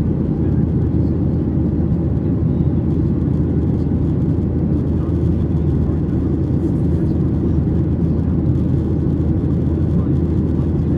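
Steady low rumble of cabin noise inside a Boeing 737-800 in flight, from its CFM56-7B engines and the air rushing past the fuselage, with a constant low hum underneath.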